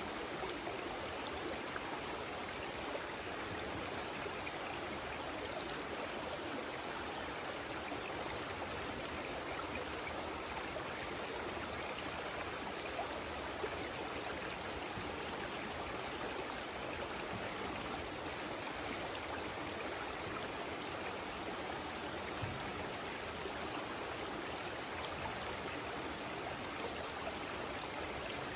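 Stream water flowing steadily, an even unbroken rush. Two faint short high chirps come near the end.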